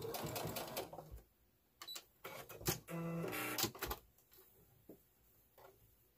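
Brother computerized sewing machine stitching in two short runs, one in the first second and a longer one from about two to four seconds in, then stopping.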